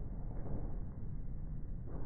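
Wind rumbling on the microphone: a steady, uneven low rumble without any pitch.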